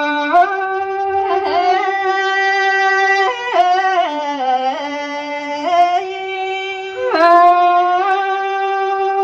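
Solo wind-instrument melody of long held notes that step between pitches, with a lower, ornamented passage about four to six seconds in and a quick dip near seven seconds. It plays as an interlude between sung verses of a Thai folk song.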